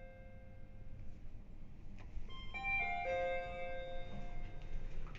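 Mitsubishi Electric elevator's four-note chime. The last notes of one chime ring out, then about two and a half seconds in a new chime sounds four notes stepping down in pitch, which ring on for a couple of seconds.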